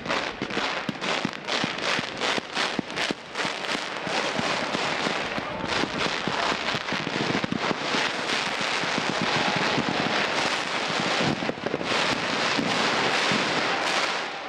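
Fireworks display: a rapid string of bangs and crackles that builds, about four seconds in, into dense, continuous crackling from many crackling stars and comets going off at once.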